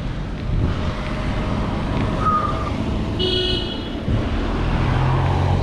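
Road traffic heard from a bicycle over a steady rush of wind on the microphone. A car horn gives one short beep about three seconds in, and a car engine runs close by from about four seconds on.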